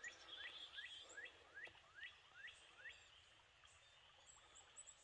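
A bird singing faintly: a run of about eight quick rising notes, two to three a second, that stops about three seconds in, leaving only faint high calls over a low outdoor hush.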